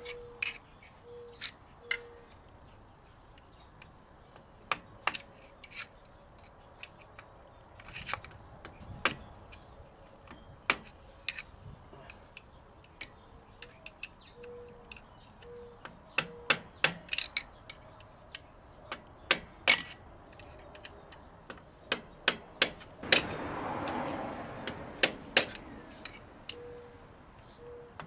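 Hammer tapping a punch against the wheel-bearing adjusting nut on a semi-truck axle hub to tighten it: sharp metallic clinks, some single and some in quick runs of several. About 23 seconds in there is a second or so of rough, scraping noise.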